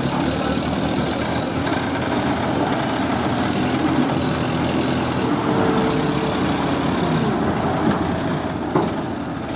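Heavy diesel engines running hard under load as a loaded Ashok Leyland lorry strains to drive out of soft mud with a crane pulling it. A short sharp knock comes about nine seconds in.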